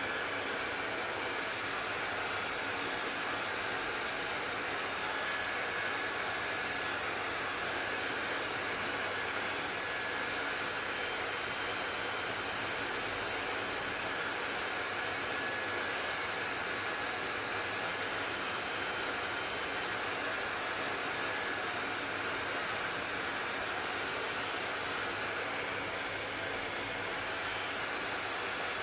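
Hair dryer running steadily: an even blowing hiss with a faint, steady whine above it.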